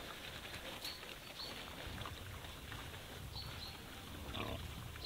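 Faint rural outdoor ambience: a low, unsteady rumble with a few faint clicks, and a brief faint sound about four and a half seconds in.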